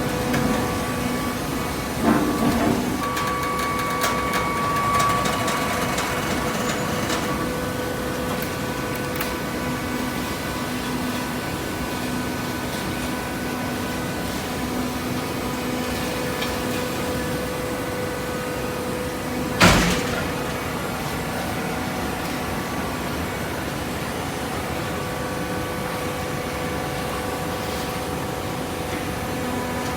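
Hydraulic baler running with a steady mechanical hum that holds several steady tones. There are a few knocks a couple of seconds in and one loud bang about twenty seconds in.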